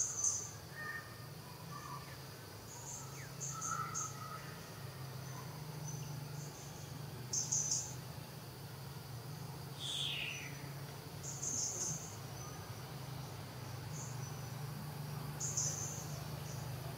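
Insects chirping outdoors in short, high-pitched bursts every few seconds over a steady low hum, with a single short falling call about ten seconds in.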